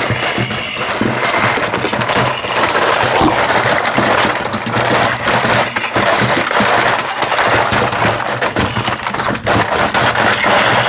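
Loud monster-truck engine sound for the Screaming Banshee: a steady, noisy drone mixed with many clicks and knocks.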